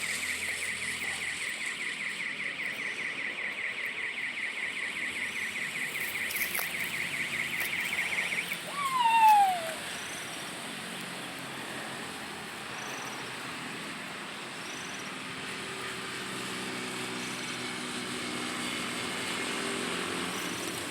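Outdoor bush ambience: a steady, fast pulsing trill, typical of an insect, that stops about eight seconds in. About nine seconds in comes a single short call falling in pitch, the loudest sound, and after it only a faint steady background.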